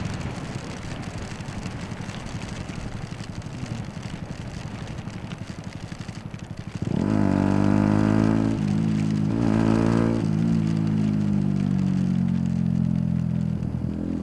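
Yamaha YZF-R125's single-cylinder four-stroke engine ticking over at low revs, then opening up about seven seconds in: the motorcycle gets louder and accelerates, its revs rising and dipping before settling to a steady pull.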